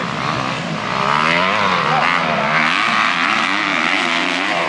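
Several motocross dirt bike engines revving up and down at once, their pitches rising and falling over one another.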